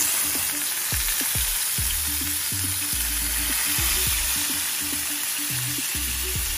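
Marinated chicken breast pieces sizzling in a few tablespoons of oil in a frying pan as they are laid in: a steady frying hiss.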